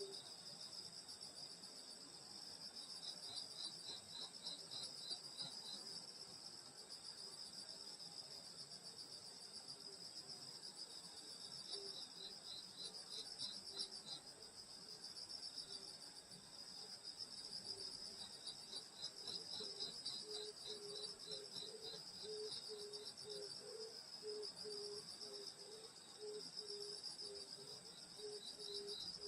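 A faint night chorus of grass insects: a steady high trill throughout, a faster pulsed chirping in three bouts, and a lower repeated pulsing call growing stronger in the second half.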